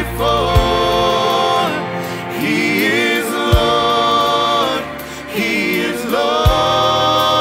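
Live contemporary worship music: voices singing long held lines over acoustic guitar and piano, with a low thump about every three seconds.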